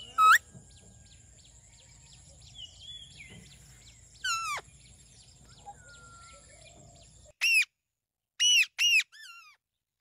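Parakeets (Indian ringnecks and Alexandrines) giving loud, harsh screeches that fall in pitch. There is one near the start and another about four seconds in, then four in quick succession over the last three seconds. Under the first part is a faint steady high-pitched tone that stops abruptly about seven seconds in.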